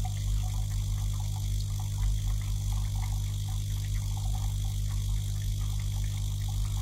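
Newly fitted electric water pump of a coffee machine, the hot-water pump with its outlet valve, running steadily while it pumps water through. It gives a constant low hum with overtones.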